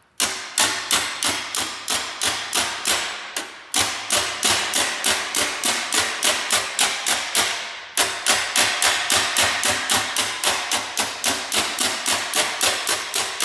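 Hammer-and-dolly planishing: a hammer strikes a welded sheet-metal seam backed by a flat steel dolly, in a steady run of sharp metallic blows at about three to four a second, with two short breaks, about three and a half and eight seconds in. The blows stretch back out the metal that shrank around the weld.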